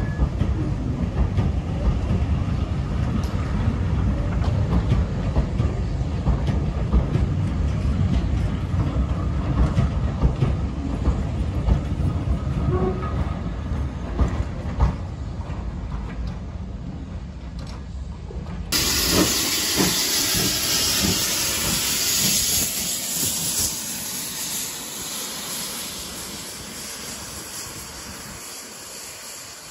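Railway coaches rolling past at low speed, a low rumble of wheels on track with scattered clacks over the rail joints. About two-thirds of the way in this gives way to the steady hiss of a GWR steam locomotive, which slowly fades.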